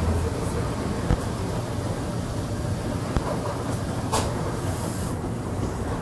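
Commercial front-loading washing machines running: a steady low rumble and hum, with a few brief sharp clicks about one, three and four seconds in.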